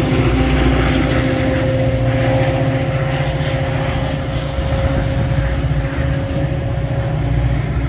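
Metra diesel commuter train running at the platform: a steady engine rumble with a constant whine on top, fading slightly.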